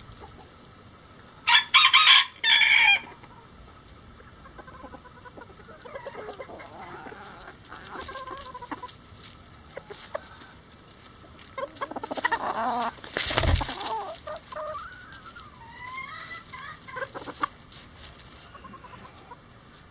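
A bantam rooster crows once, loud and high-pitched, about a couple of seconds in. After that the flock clucks and calls softly on and off, with a brief thump about two-thirds of the way through.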